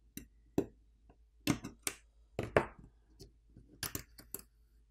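A run of sharp, irregular clicks and taps, about eight of them, as a metal pry tool lifts the charging-port subboard out of the Nokia X20 smartphone's frame.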